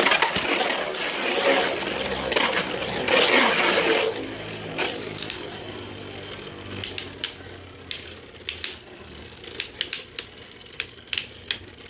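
Plastic 3D-printed Beyblade spinning tops whirring and clashing in a stadium for about four seconds, then quieter, followed by a string of sharp plastic clicks.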